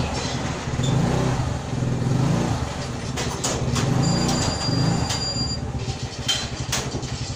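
Small motor scooter engine running at low speed, its pitch rising and falling as the scooter is eased along, with a few short knocks. A high steady squeal sounds for about a second and a half midway.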